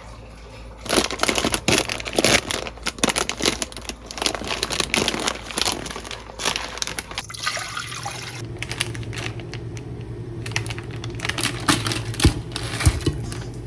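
Crinkly plastic food packaging being handled and torn open, a run of sharp rustles and crackles. From about eight seconds in, a steady low hum joins it.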